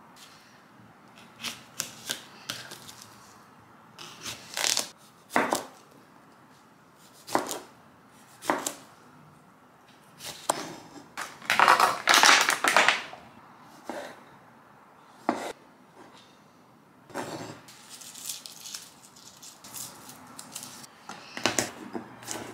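Blunt kitchen knife chopping vegetables on a wooden chopping board: irregular, separate knocks and scrapes of the blade against the board. About halfway through, a longer, louder rustle and clatter as cherry tomatoes are taken from a plastic tub.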